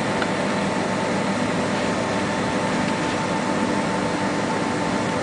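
Steady cabin noise inside a Boeing 767 airliner during taxi after landing: engines at idle and the air-conditioning hiss, with a thin steady tone running through it.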